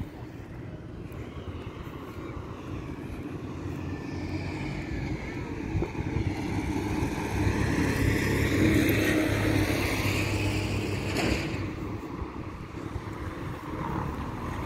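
A road vehicle passes by, its engine and tyre noise building to a peak about nine seconds in and then fading, over a steady low traffic rumble.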